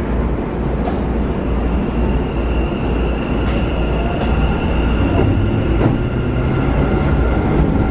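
Keikyu New 1000 series electric train heard from inside the car: a steady low running rumble, with the Mitsubishi IGBT-VVVF inverter and traction motors giving a faint whine that rises in pitch from about halfway through as the train accelerates. Two short sharp clicks are heard, one about a second in and one near six seconds.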